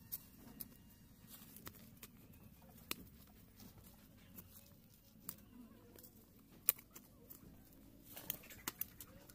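Bare hands scraping and crumbling dry soil and twigs while digging out a purple yam tuber: scattered small clicks and rustles, the sharpest about two-thirds of the way through and a few more close together near the end.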